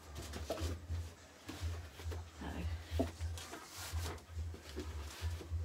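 Soft rustling and handling of a stretchy fabric top as it is pulled and smoothed onto a padded dressmaker's dummy, in scattered short bursts.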